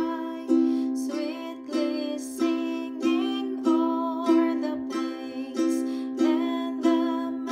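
Ukulele held on a C major chord and strummed with the thumb in even down strums, about one and a half a second, with a voice singing the carol melody along.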